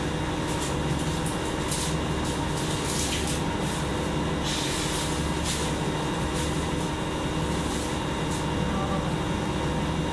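Cummins ISL-G natural-gas engine of an Orion VII NG CNG transit bus running, heard from inside the passenger cabin as a steady drone. Short hisses come through it several times.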